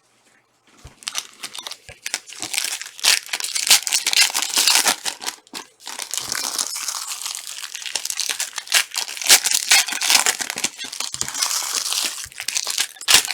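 Trading card pack wrappers being torn open and crinkled by hand, a dense run of crackling with a short pause a little past the middle.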